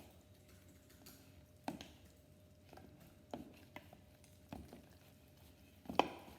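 A spoon stirring thick pancake batter of flour and milk in a mixing bowl, with about six irregular knocks against the bowl's side, the loudest near the end.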